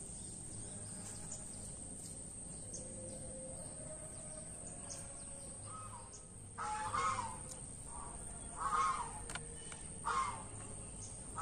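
A steady high-pitched insect drone over faint outdoor background. From about halfway through, a bird gives four loud calls, each a second or so apart.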